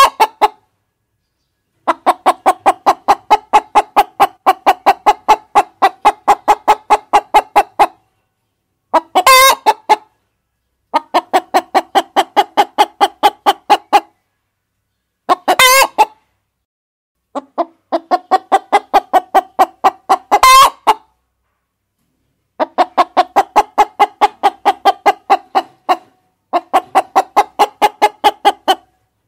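Chickens clucking in rapid, even runs of about four clucks a second, each run lasting a few seconds, with dead silence between runs. Three times a single short, sharper squawk stands out from the runs.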